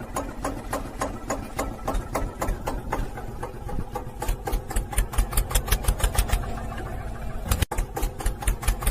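Tractor diesel engine chugging in a regular beat of low thumps that gets faster and stronger about five seconds in, with a brief cut-out near the end.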